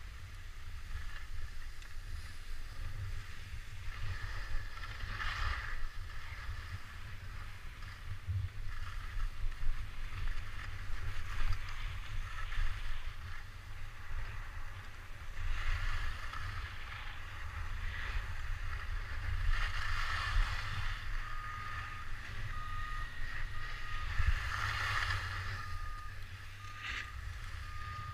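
Wind buffeting an action camera's microphone during a ski run, with the hiss of skis carving on snow swelling and fading every few seconds. Past the middle, a short electronic beep starts repeating a little faster than once a second.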